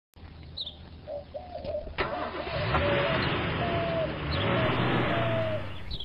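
A car driving, its engine and road noise building over the first few seconds, with birds calling in short chirps over it and a sharp click about two seconds in.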